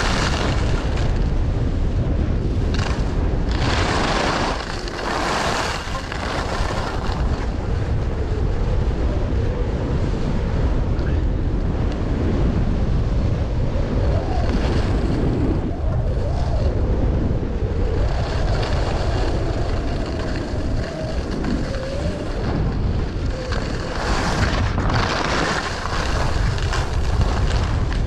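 Wind buffeting the microphone: a continuous low rumble with gusts that flare up about four seconds in and again near the end.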